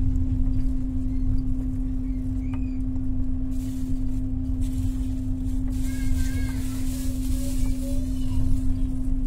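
Inside a moving double-decker passenger train carriage: a steady low hum holds one constant tone over the rumble of the running train, with a few faint short chirps.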